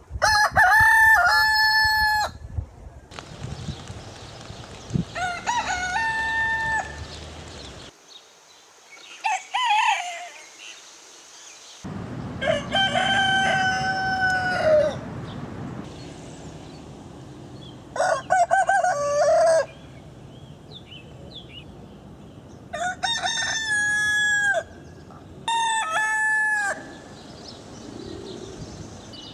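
Roosters crowing, about seven cock-a-doodle-doo crows one after another, each lasting one to two and a half seconds, from several different birds.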